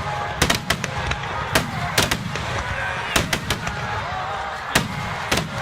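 Aerial fireworks bursting overhead: about a dozen sharp bangs in quick, irregular succession over a continuous low rumble, with crowd voices underneath.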